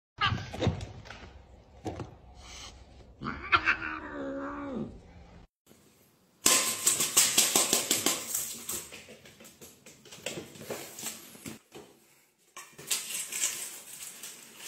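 A domestic cat's drawn-out, wavering yowl about three and a half seconds in. After a short silence comes a loud, busy run of clicks and rattles.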